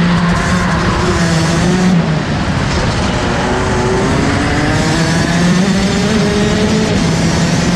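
Rotax Max DD2 kart's 125cc single-cylinder two-stroke engine at high revs, backing off about two seconds in, then revving up steadily as the kart accelerates out of the corner.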